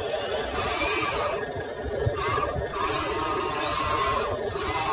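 Electric motors and gearing of a Huina radio-controlled excavator whirring as the boom, arm and bucket move, starting and stopping several times.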